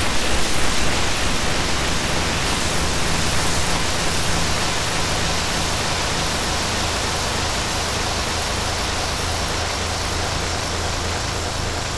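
Background music made of a dense, steady hiss-like noise drone with a low hum underneath. One of the low tones fades out about halfway through.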